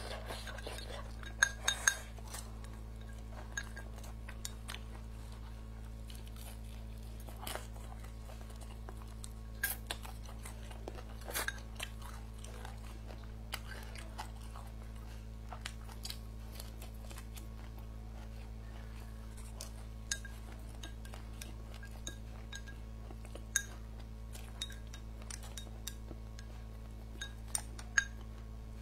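Wooden chopsticks tapping and scraping against a ceramic bowl, in scattered clicks every second or so, with a few louder knocks, over quiet chewing. A steady low hum runs underneath.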